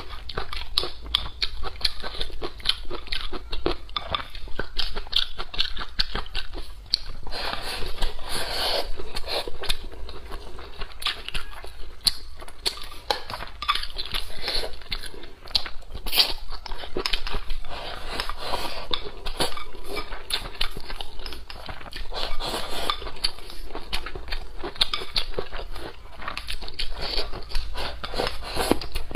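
A person eating braised fish with chopsticks, close to a lapel microphone: continuous chewing and biting with many short clicks.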